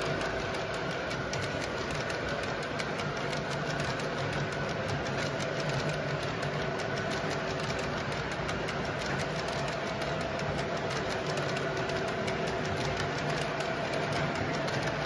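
MTH O-gauge model freight train running on three-rail track: the cars roll past with a steady rumble and rapid clicking of wheels over the rails. Under it runs the steady electronic diesel engine sound of the FM Train Master locomotive.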